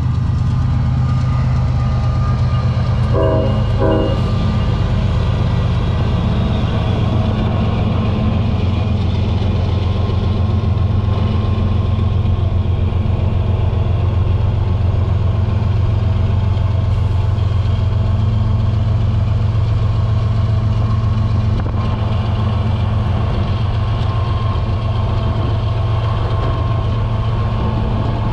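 Union Pacific ES44AC diesel locomotive running with a steady low engine drone as it pulls a coal train, with two short horn blasts about three seconds in.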